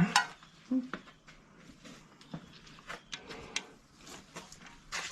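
Scattered light clicks and taps of hand tools on an engine as fasteners are worked loose by hand.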